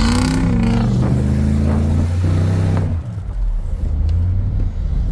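Vehicle engine revving hard, then easing off to a lower steady running about three seconds in.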